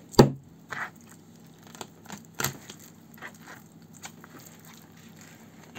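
Knocks and rustling from a pike being cut up and handled. There is one sharp knock just after the start, a few softer taps and crinkles, and a second clatter about two and a half seconds in.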